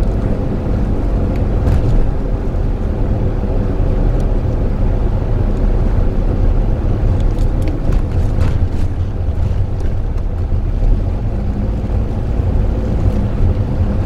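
Steady low engine and road rumble inside the cabin of a 2013 Daihatsu Move Custom RS, a kei car with a three-cylinder turbo engine.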